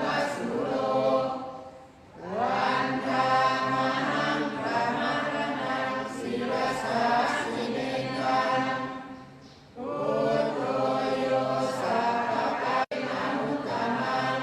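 Many voices chanting Pali in unison in a Thai Buddhist evening chanting service, in long drawn-out phrases with short pauses about two seconds in and again near ten seconds.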